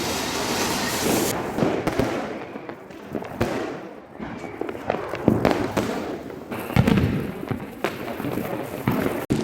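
Fireworks and firecrackers going off: a run of irregular bangs and crackling, the loudest about five and seven seconds in.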